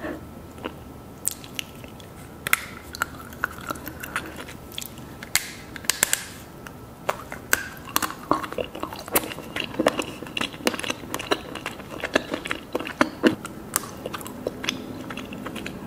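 Close-miked eating of soft mousse cake: biting and chewing with a run of short wet clicks and smacks, sparse at first and much denser from about two seconds in.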